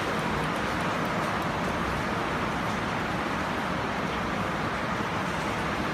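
Steady background hiss with a low rumble, even throughout, with no distinct knocks or other events.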